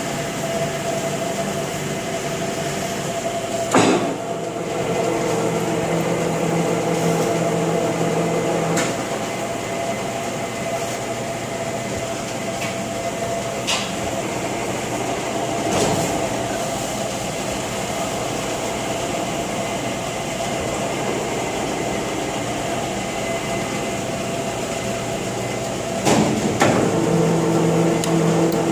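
Large 20 HP LeBlond Regal engine lathe running under power: a steady mechanical hum and whine from the drive and headstock. A sharp knock about four seconds in brings in an extra lower hum that drops out around nine seconds. Knocks near the end bring it back.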